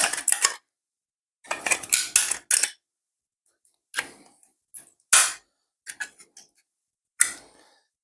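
Short clicks and scrapes of hard 3D-printed plastic as support and brim material is picked and snapped off a printed part, in about half a dozen separate bursts.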